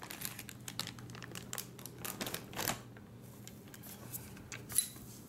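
Clear plastic wrapping crinkling and rustling as a folded travel tripod is pulled out of it, with light handling clicks. The crackling is dense for the first few seconds, then thins out, with one sharp click near the end.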